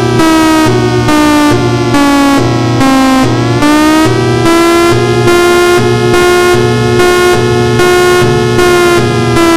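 Federal Signal Thunderbolt 1003A civil-defense siren sounding a loud, continuous tone. Its pitch sags for the first few seconds, then climbs back and holds. A steady pulse runs through it a little more than once a second.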